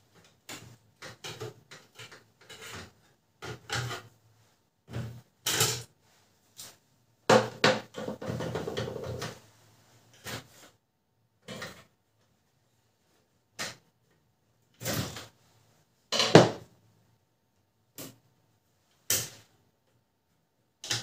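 Plastic covers of a Canon LBP 2900 laser printer being handled and fitted back on: a string of separate clicks and knocks, with a longer rubbing sound lasting about two seconds, starting about seven seconds in.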